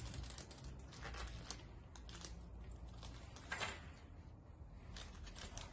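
Faint rustling and crinkling of small plastic bags of bolts handled by hand, with a slightly louder rustle about three and a half seconds in.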